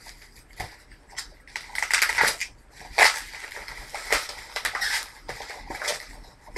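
Packing material in a shipping box crinkling and rustling as it is handled and pulled out, in irregular bursts with sharp crackles, the loudest about three seconds in.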